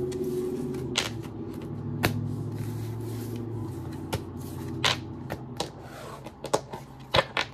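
Tarot cards being gathered off a wooden desk and handled as a deck, giving scattered sharp taps and clicks of card against card and tabletop. A low hum runs underneath and stops a little past halfway.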